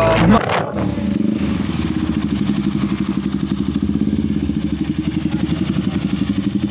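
KTM Duke motorcycles' single-cylinder engines idling, a steady pulsing sound.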